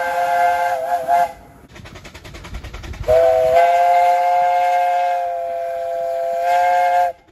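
Steam locomotive chime whistle sounding a chord of several notes. The first blast ends about a second in. After a short quieter gap with rapid ticking, a second blast of about four seconds cuts off sharply near the end.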